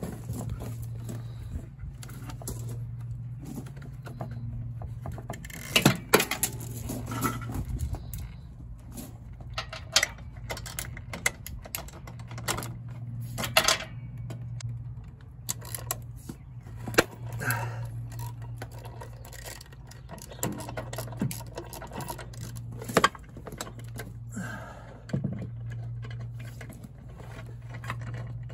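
Hand tools clicking, clinking and knocking against the metal of a utility vehicle's CVT drive clutch, in irregular bursts with a few sharper knocks, over a steady low hum.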